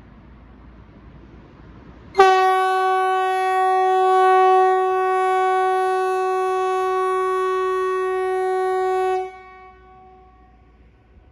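Kockums Typhoon (MKT 75/370) civil-defence siren sounding one loud, steady tone for about seven seconds. It starts a couple of seconds in, then cuts off, leaving a short fading echo. The single seven-second blast matches the first blast of Sweden's "Important public message" (Hesa Fredrik) test signal.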